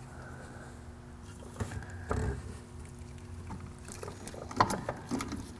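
Gloved hands bending and fitting a steel brake line by the master cylinder: scattered light clicks and taps of the line and fitting against metal parts, with a dull thump about two seconds in and a cluster of sharper clicks near the end.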